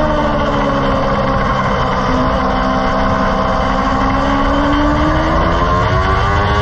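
Vehicle engine heard onboard on a race circuit. The revs fall over the first couple of seconds, hold low, then climb smoothly again, over heavy wind and road noise.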